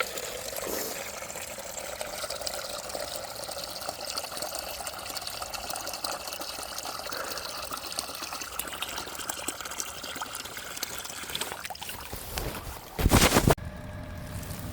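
Water pouring and trickling steadily for about twelve seconds, then a short loud burst of noise near the end.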